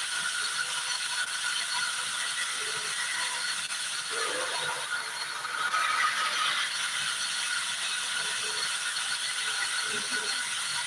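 Woodworking sawing machine running steadily, a continuous mechanical whir and hiss at an even level.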